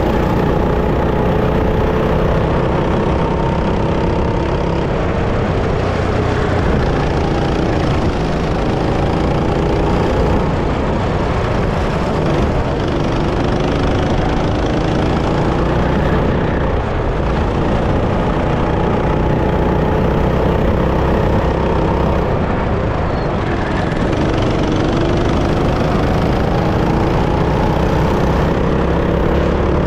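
Go-kart engine running under load, its pitch rising and falling again and again as the kart speeds up and slows down, over a steady low rumble.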